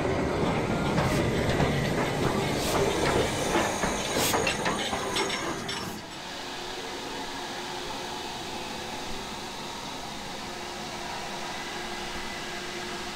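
Steam-hauled train moving along the platform, its wheels clicking and its coaches rattling. About six seconds in this gives way to a quieter steady hiss of steam from the standing LMS Black Five locomotive 5428.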